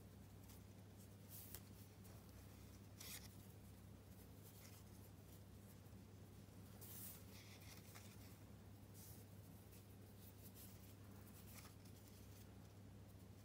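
Faint, brief swishes of macrame cord rubbing against itself and the fingers as it is looped and pulled snug into clove hitch knots, several times a few seconds apart, over a low steady hum.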